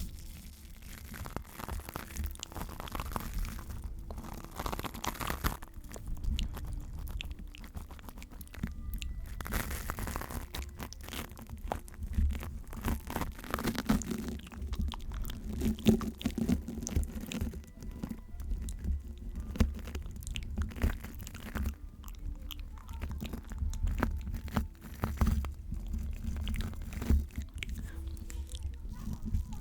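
Close-miked ASMR trigger sounds: dense, irregular crunchy crackles and taps right at a sensitive microphone, over a low rumble.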